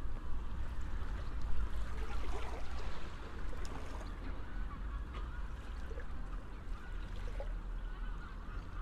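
Outdoor ambience: a steady low wind rumble with a few faint bird calls scattered through it.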